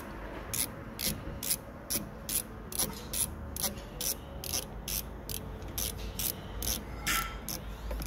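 Ratcheting screwdriver backing out a Phillips screw from a car door's lock mechanism: an even run of sharp ratchet clicks, about two a second.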